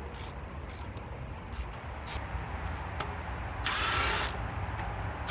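Hand ratchet wrench clicking on bolts of an engine block: a few scattered clicks, then a quick run of rapid clicking lasting under a second, about four seconds in.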